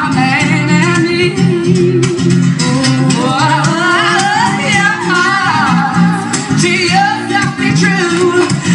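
Live amplified music: a woman singing a melody over a strummed acoustic guitar.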